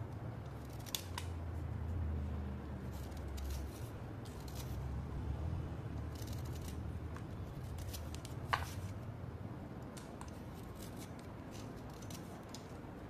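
A blade scraping thin shavings off a wet block of white slate chip: a soft, crisp scratching with sharp clicks about a second in and, louder, about eight and a half seconds in, over a low hum.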